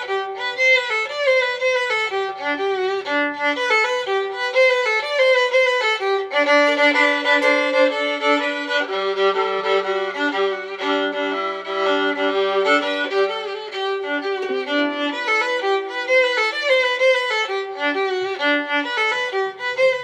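Violin music: a bowed melody with vibrato, with lower notes held beneath it.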